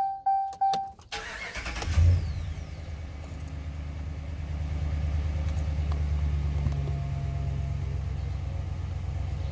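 The dashboard warning chime pings rapidly, about four times a second, for the first second. Then the 2016 Dodge Ram 1500 is started: a brief crank, the engine catches with a loud burst about two seconds in, and settles into a steady idle.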